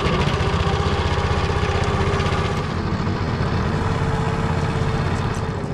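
Small boat motor running steadily, with a fast, even pulsing beat.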